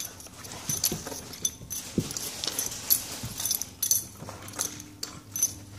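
Coiled-spring door stop being mouthed and tugged by a puppy, twanging and rattling in irregular sharp metallic snaps with a brief ringing buzz, about two a second.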